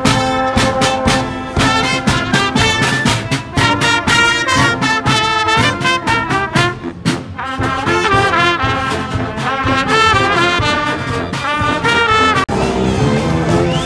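Marching brass band playing live: trombones, trumpets and a sousaphone in a lively tune, with a brief sudden break near the end.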